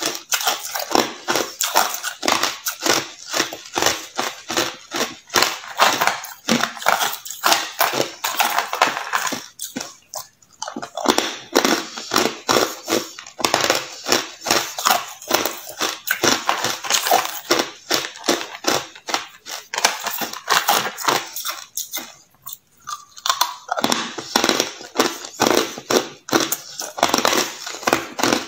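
Hard clear ice being crunched between the teeth: dense, rapid cracking and crunching, with two brief pauses, about ten seconds in and about twenty-two seconds in.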